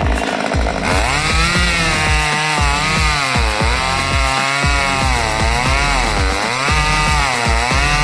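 Electronic background music with a steady bass-drum beat and a buzzy synth line whose pitch wavers up and down in slow swoops.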